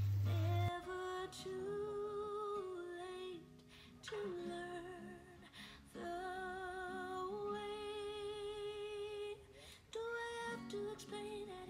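Background music: a woman singing a slow, soft melody over plucked guitar. It opens with a brief loud low hum that cuts off sharply less than a second in.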